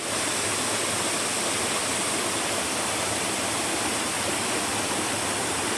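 Steady rush of fast-flowing water, a constant hiss and roar with no breaks.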